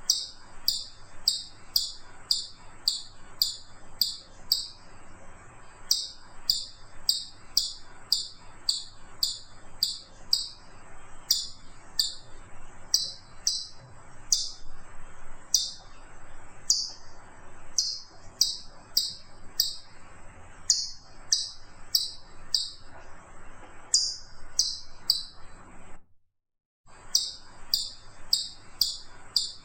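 Chipmunk giving its repeated high 'chip' call: short, sharp chirps about two a second, in runs broken by brief pauses. The sound cuts out completely for a moment near the end, then the calling goes on.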